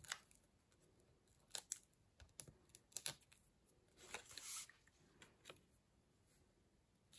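Faint paper handling: scattered light taps and rustles, with a longer scratchy rustle about four seconds in, as a patterned paper panel backed with foam pads is lifted and pressed onto a card.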